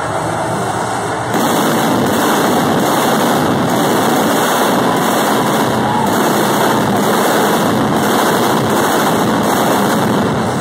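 Arena pyrotechnics going off as one dense, steady roar that gets louder about a second in, picked up on a phone microphone.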